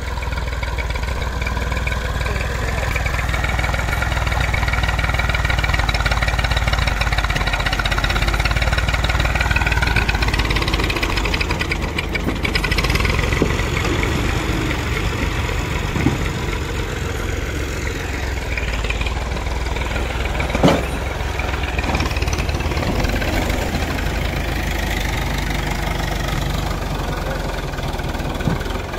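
Farm tractor's diesel engine working under load, hauling a trolley loaded with soil. The engine note rises over the first couple of seconds and then holds steady. There is one sharp knock about twenty seconds in.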